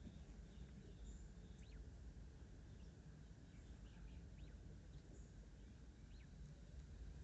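Faint, scattered short chirps from caged quail over a low steady hum.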